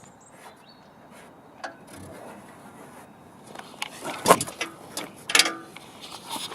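A run of short clicks and scraping crackles from something being handled, sparse at first and denser from about three and a half seconds in, with the two sharpest clicks near four and five seconds.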